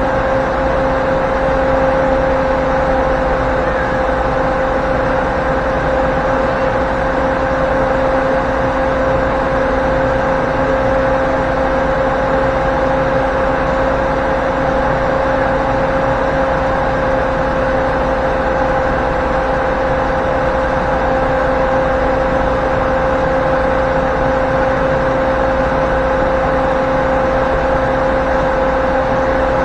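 2008 GMC Yukon XL's V8 running steadily on its newly replaced ignition coils, with a constant steady tone throughout.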